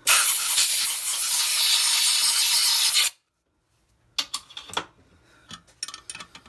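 Compressed-air blow gun hissing for about three seconds and cutting off suddenly, blowing metal chips out of a spark plug hole being re-threaded in a Ford 5.4L cylinder head so the cutting tool won't gall when it is backed out. A few light metallic clicks and taps follow.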